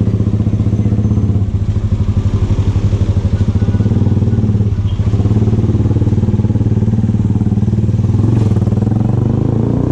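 VLR200 motorcycle engine with an aftermarket Devil exhaust box, running under way with a steady, pulsing exhaust note that dips briefly about five seconds in.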